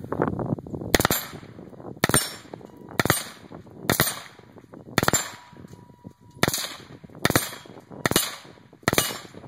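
Suppressed 11.5-inch AR-15 rifle fired semi-automatically: nine sharp shots, about one a second.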